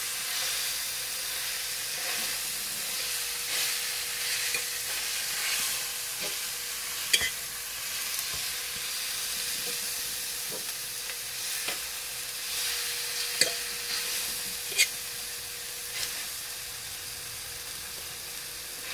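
Steak sizzling as it sears in hot butter in a pan, with a few sharp clicks and scrapes of a utensil against the pan as the meat is moved around.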